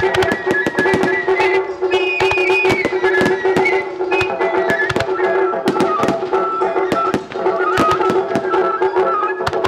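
Music with a high, stepping melody over a steady held drone, and many sharp percussive hits and bangs throughout, as in a fireworks display set to music.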